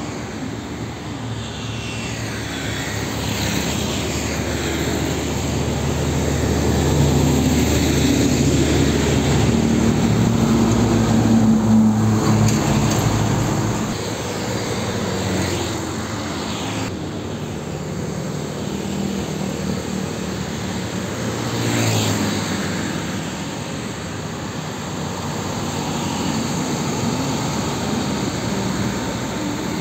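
Road traffic passing close by: truck and bus engines droning, each swelling and fading as it goes past, mixed with motorcycles and tyre noise on the road. One loud pass-by builds over the first half and another peaks a few seconds after the middle.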